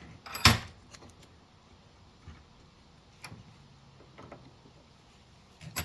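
Clicks from a bench vise being tightened on a drum-brake hub and its shoes to stretch the return spring into place: one loud click about half a second in, a few faint ticks, and another loud click at the end.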